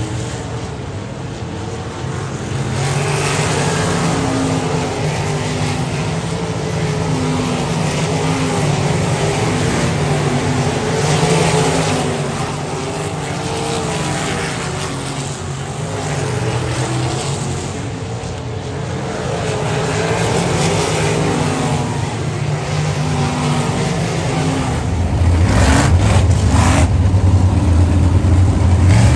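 Winged sprint cars' V8 engines racing around a dirt oval, the engine note swelling and fading as the cars pass on the straights and back off into the turns. It is loudest near the end, when several cars run close together.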